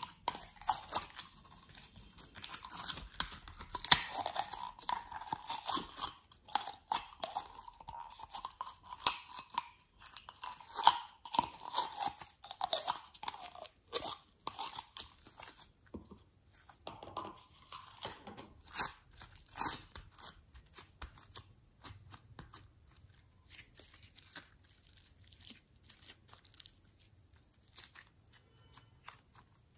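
Sticky slime squeezed out of plastic toy containers and kneaded by hand, making a run of wet crackles, clicks and pops. The crackling is dense through the first half and grows sparser and quieter later.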